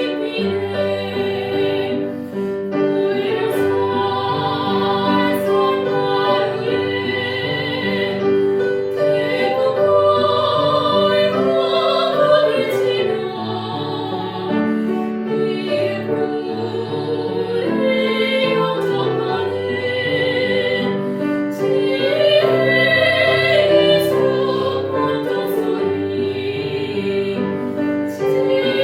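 A Korean Buddhist hymn (chanbulga) sung in a classical, operatic style with piano accompaniment. The singing is sustained, with a wavering vibrato on held notes.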